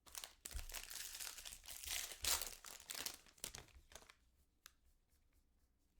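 Foil wrapper of a trading-card pack crinkling and tearing as it is ripped open, for about three and a half seconds, followed by a few light clicks.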